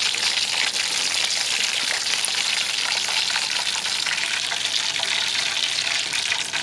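Pork meatballs deep-frying in hot oil, sizzling steadily with a dense crackle.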